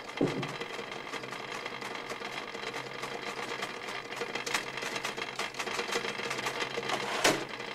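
Typewriter keys clattering in a fast, continuous run of keystrokes over a steady low hum, with one louder clack near the end.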